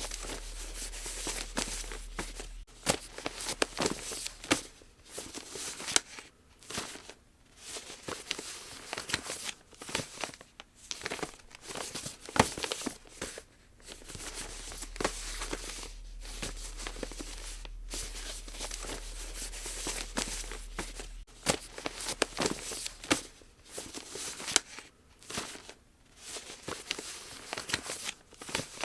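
Square origami paper being folded and creased by hand: irregular crinkling rustles and sharp scrapes as folds are pressed down, with a low electrical hum in some stretches.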